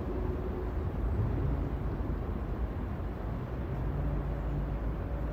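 Steady low outdoor rumble with a noise haze, with a faint brief hum about four seconds in.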